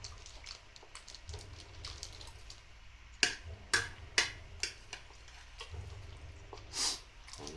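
Cutlery clinking against a plate while eating: four sharp clinks in quick succession about halfway through, then a short scrape near the end.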